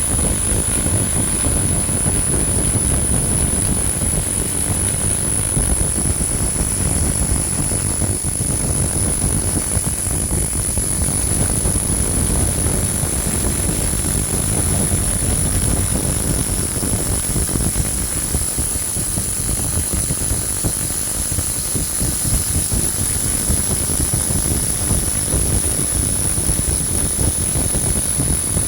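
300 W pulsed laser cleaner firing continuously while removing rust from an old school bell: a steady rushing noise with a constant high-pitched whine over it.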